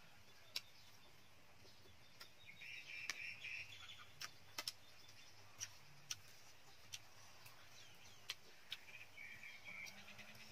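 Quiet eating sounds: a scatter of sharp clicks from a metal spoon and chewing. Faint bird chirping comes twice, about a quarter of the way in and again near the end.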